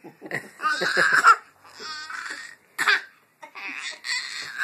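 Baby laughing and babbling in several short, excited bursts, some breathy and squealing.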